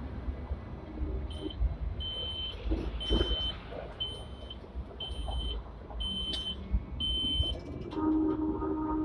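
A high electronic beep in the cab of a Hong Kong tram repeats about once every 0.8 s, seven times, over the low rumble and knocks of the tram rolling slowly over points. Near the end a lower, steadier tone with several pitches sounds.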